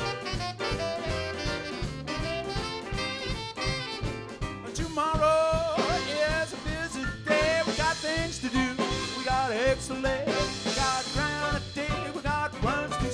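Live swing band playing an instrumental break of a jump-blues number: saxophones, trumpet, electric guitar, upright bass and a drum kit keeping a steady beat. About five seconds in, a lead line of bending, sliding notes comes to the front.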